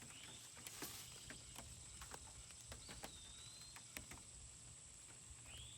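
Near silence: a few faint clicks and rustles of saddle tether and rope being handled, against a steady high insect drone, with a few short faint whistled calls, one held for about a second near the middle.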